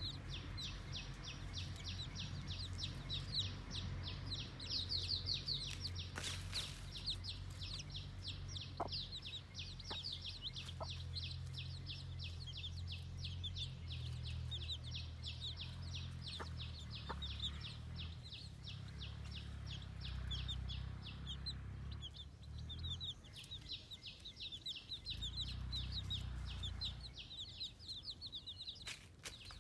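Baby chicks peeping: a rapid, unbroken stream of short high chirps that thins out near the end, over a low steady hum.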